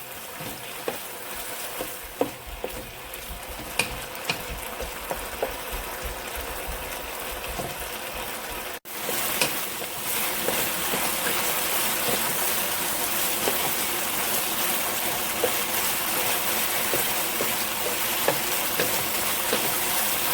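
Strips of chicken breast sizzling in olive oil in a frying pan, with occasional light clicks. The sizzle breaks off briefly about nine seconds in and comes back louder.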